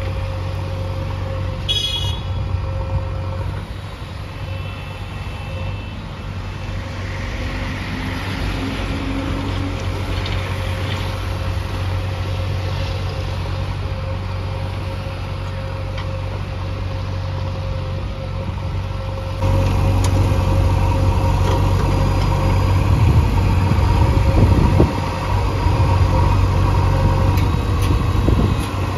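JCB 3DX backhoe loader's diesel engine running steadily under load while the backhoe digs soil. A short high beep sounds about two seconds in, and about 19 seconds in the engine suddenly becomes louder and closer.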